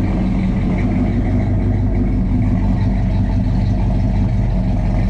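1968 Pontiac GTO's rebuilt original V8 idling steadily, freshly started after sitting for about six months.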